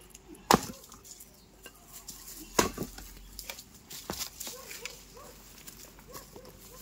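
Sharp knocks of hand tools striking earth and stone, two loud strikes about two seconds apart and a lighter one later, while a road is being dug by hand.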